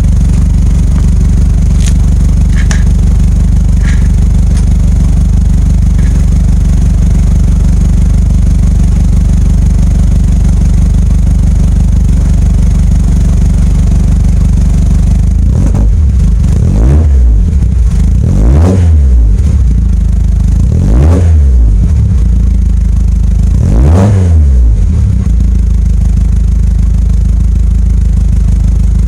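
Lotus Elan engine running through a stainless-steel exhaust silencer: a steady idle, then four quick throttle blips in the second half, each rising and falling in pitch, before it settles back to idle.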